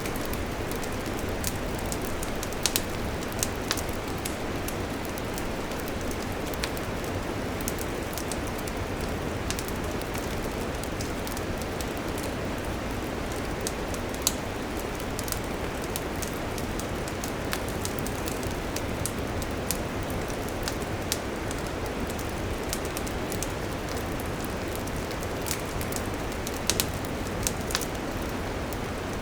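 Wood campfire burning: a steady low rush with frequent sharp crackles and pops scattered through it.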